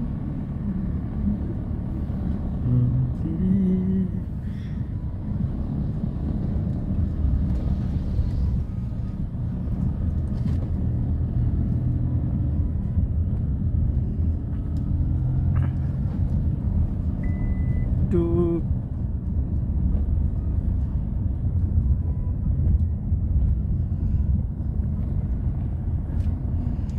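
Steady low rumble of a van's engine and tyres heard from inside the cabin as it drives over a rough, muddy dirt road. A short high beep sounds about seventeen seconds in.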